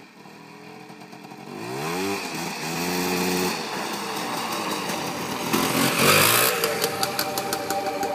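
Polaris Scrambler 400 ATV's two-stroke engine approaching: it revs up with a rising pitch about a second and a half in, holds high revs, and is loudest as it comes close around six seconds in.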